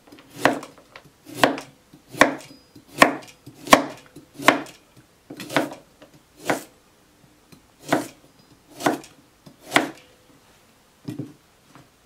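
Chef knife slicing through a carrot into rounds on a wooden cutting board: a crisp cut and knock of the blade on the board about once a second, some eleven strokes, slowing and fading out near the end.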